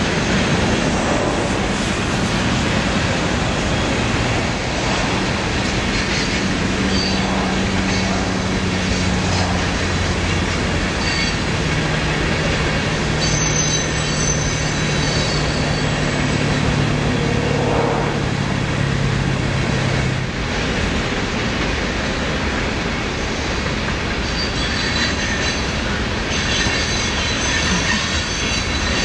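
Bucket truck's engine running with its hydraulic system working the aerial boom as it is folded and rotated toward its stowed position: a steady mechanical noise with low hums that shift in pitch and stop about twenty seconds in.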